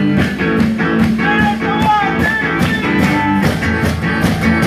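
Live band playing a rock song: strummed guitars over a steady driving beat. A short melody line wavers up and down about a second in.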